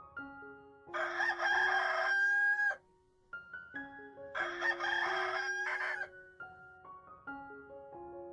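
A rooster crowing twice, each crow close to two seconds long and the loudest sound, over soft piano music.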